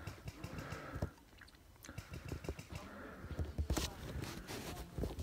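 Handling noise of a covered phone: cloth rustling and scraping over the microphone, with irregular soft thumps and clicks.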